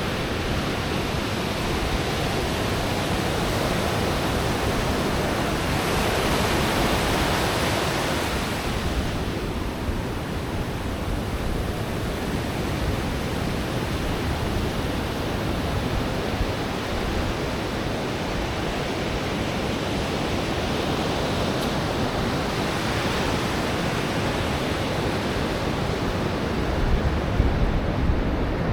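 Ocean surf washing steadily onto a beach, swelling as waves break. There are a few wind buffets on the microphone near the end.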